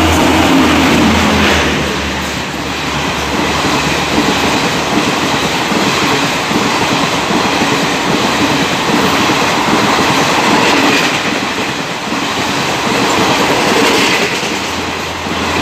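Express train hauled by a WAP-4 electric locomotive running through a station at speed without stopping, then its coaches rushing past in a loud, continuous rumble of wheels on rail. A low hum is heard in the first second or two.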